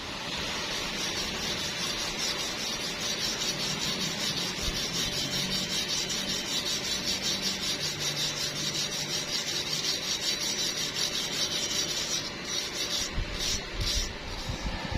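Stick-welding arc crackling and sizzling steadily. Near the end it breaks off and comes back a few times in short stretches.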